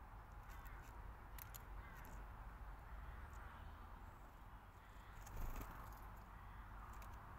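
Faint outdoor garden ambience: a low rumble of wind on the microphone with a few short, high bird chirps, and a brief louder swell about five and a half seconds in.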